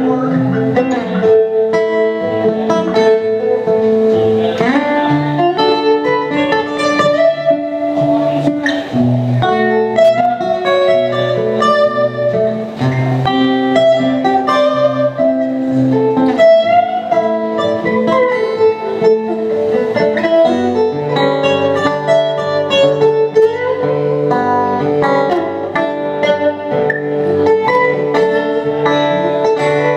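Two acoustic guitars playing an instrumental passage together, a picked melody over a steady bass line, with a few notes bent or slid upward about four seconds in.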